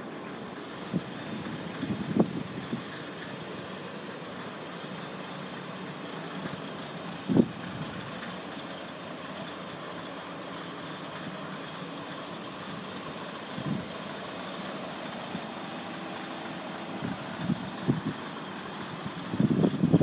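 Kominato Railway KiHa 200 diesel railcar standing with its engine idling steadily, with a few short knocks, more of them near the end.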